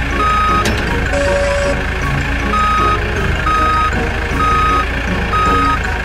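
Vehicle reversing alarm beeping at a steady pitch, about once a second with a short pause early on, over the steady low drone of a diesel engine. One lower-pitched beep sounds about a second in.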